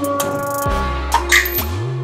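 Background music with a deep bass that slides up and down in pitch, sustained notes and drum hits.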